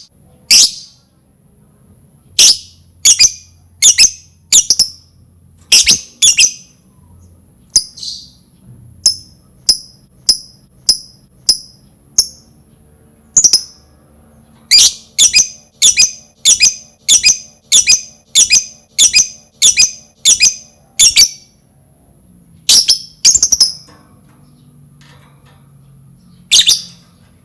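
Lovebird giving loud, short, shrill chirps one after another, about two a second, in runs broken by short pauses.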